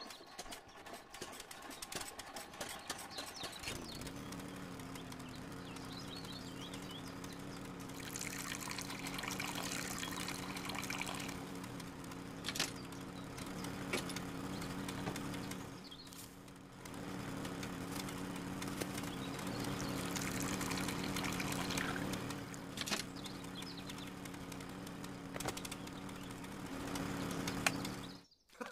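Small electric motor in a model tractor engine starting about four seconds in and running steadily, belt-driving a miniature juicer, with wet pouring and splashing sounds at times; the motor cuts off suddenly near the end.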